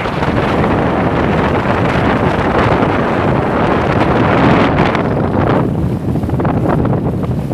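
Wind buffeting the microphone, a loud steady rush. It thins out a little in the higher range after about five and a half seconds.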